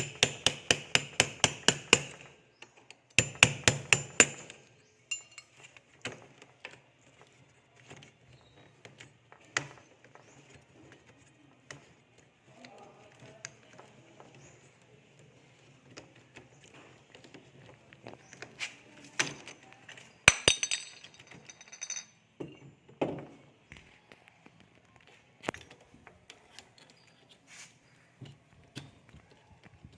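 Hammer blows during door repair: a quick run of strikes at the start and another about three seconds in, then scattered lighter knocks and clinks, with a short louder cluster about twenty seconds in.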